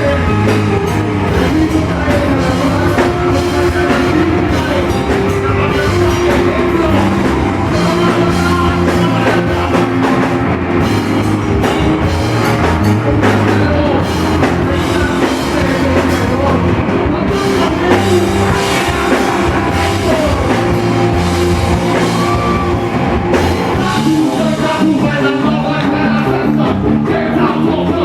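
Loud rock music from a band, with drum kit and a singing voice.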